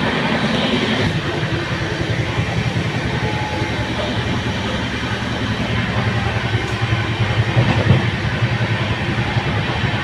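Express passenger train running at speed, heard from aboard: a steady rumble of the coach and wheels on the rails with a low hum throughout.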